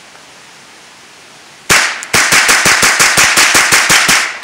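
Semi-automatic .22 rifle, a Ruger 10/22 fed from a BX-25 magazine, firing: one shot about a second and a half in, then a rapid string of shots at about seven a second.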